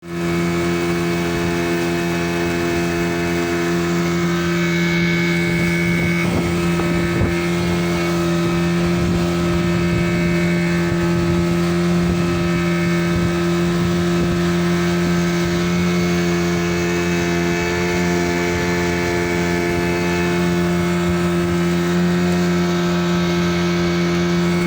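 Boat engine running at a steady speed, a constant even drone that holds one pitch throughout.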